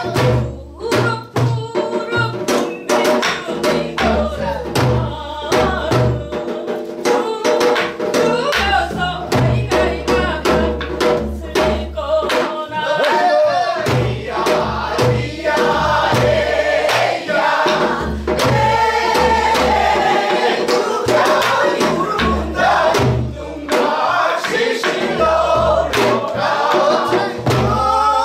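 Mixed chorus of men and women singing a Korean folk song together, accompanied by a janggu hourglass drum and a buk barrel drum keeping a steady beat.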